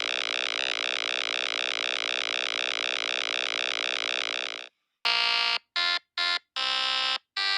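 Synthesized electronic tone with a fast flutter, held steady and then cutting off sharply about four and a half seconds in. A string of electronic beeps of uneven length follows.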